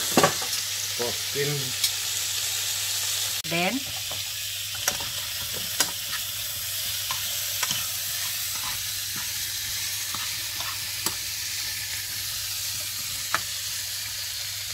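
Pork pieces sizzling as they fry in oil in a nonstick pan, a steady hiss, with occasional sharp clicks of a spatula against the pan as they are stirred.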